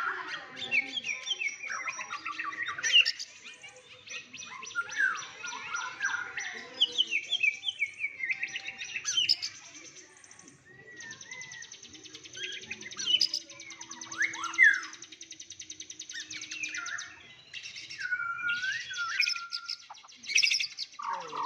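Songbird singing a long, varied song of rapid chirps, trills and whistled phrases, with a brief quieter stretch about halfway through.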